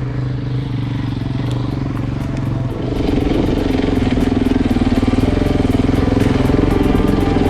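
Single-cylinder dual-sport motorcycle engine running steadily, then getting louder and changing its note about three seconds in as the throttle opens. A rapid, irregular light ticking sits above it.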